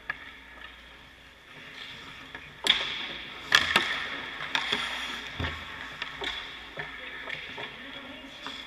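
Hockey pucks striking a goalie's pads and stick on the ice: a loud sharp crack about three seconds in, two more close together half a second later, then lighter knocks, over a steady scraping hiss of skates and pads on the ice.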